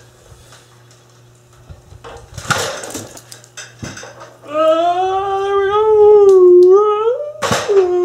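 After a rustle and a knock, a loud voice howls: one long wavering note for about three seconds, a sharp breath, then a second long note near the end.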